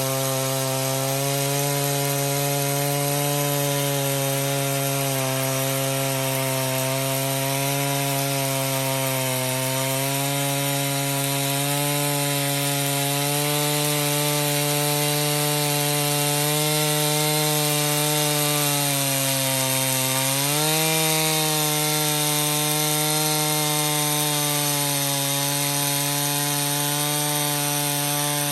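Two-stroke chainsaw running under load, cutting lengthwise along a log in a vertical mini-mill. The engine note holds steady, sags in pitch a little past two-thirds of the way through as the saw bogs in the cut, then picks back up.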